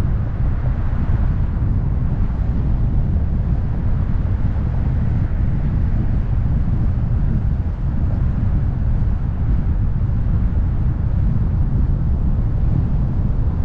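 Wind buffeting the microphone of a camera mounted on the roof of a moving car: a steady, loud, low rumble with the car's road noise underneath.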